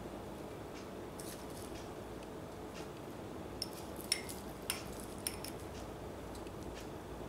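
Faint, scattered light clinks and taps of a metal spoon and small glass bowl as fried onions are spooned over rice in a ceramic dish, over a steady low room hum.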